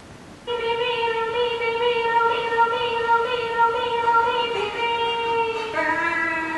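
A woman singing one long held note on a Smule karaoke recording, starting about half a second in and shifting to a lower note near the end.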